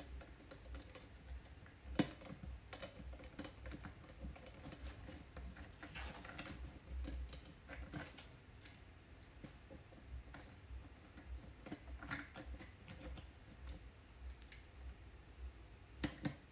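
Faint, scattered small clicks and taps of hands handling a small 3D-printed robot while pushing stripped motor wires into the screw terminals of its motor shield. One sharper click comes about two seconds in, and a few more near the end.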